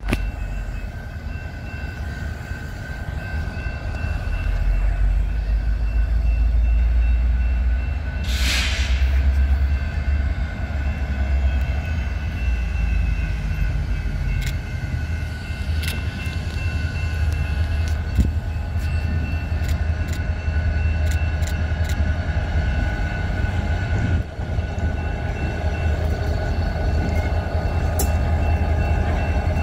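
Freight train led by BNSF diesel locomotive 2911 rolling slowly up and past, its engine a steady low rumble that swells a few seconds in. A grade-crossing warning bell rings steadily throughout, and there is a brief hiss about eight seconds in.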